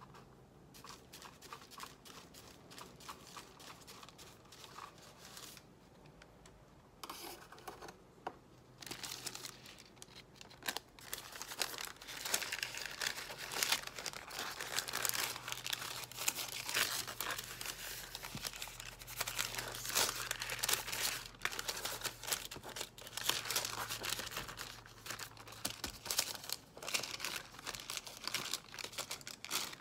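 Sheet of thin paper rustling and crinkling as hands rub it down on a wet acrylic-painted canvas and lift it off for a monoprint. It is faint at first and becomes dense and steady about ten seconds in.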